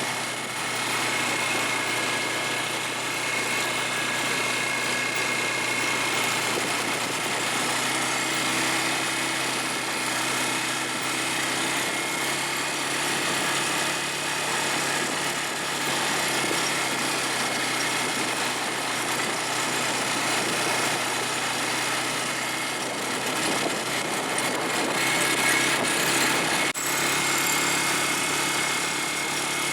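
ATV engine running steadily during a ride, under a broad, even rushing noise. The sound dips briefly once, near the end.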